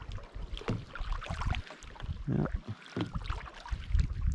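Kayak paddle dipping and splashing in lake water in irregular strokes, with drips and low rumble.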